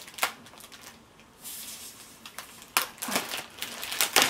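Plastic packaging around a rolled canvas tube being handled: a few sharp crinkles and clicks, with a short soft rustle near the middle.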